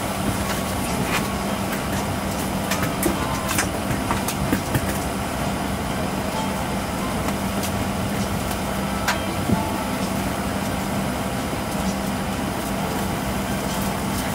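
Steady noise inside an airliner's cabin: an even rushing hiss from the ventilation with a steady low hum, broken by scattered light clicks and knocks.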